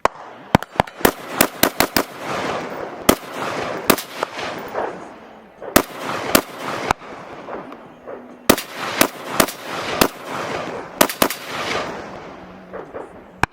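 Rifle gunfire, most likely a Steyr AUG: strings of rapid shots fired in quick succession, some close together and some with short pauses between, each crack followed by an echo.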